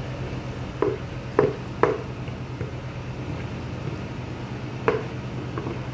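Sharp knocks of a long metal spoon and a plastic bowl against a large aluminium cooking pot as chopped leaves are tipped and scraped into simmering soup: three knocks close together about a second in and one more near the end, over a steady low hum.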